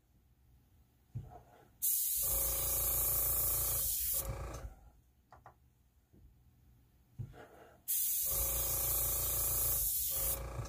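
Airbrush spraying in two bursts of about two and a half seconds each: a steady hiss of air over the hum of its Master TC-320 compressor running at about 30 PSI. Faint clicks of handling fall between the bursts.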